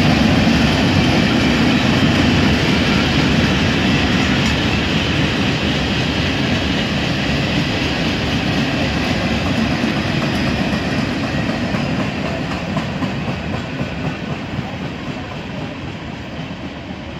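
Freight train boxcars rolling past, their steel wheels clattering over the rail joints. The sound slowly fades as the last cars go by.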